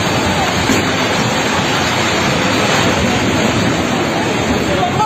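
Loud, steady rushing noise with faint voices mixed in, cutting off abruptly at the end.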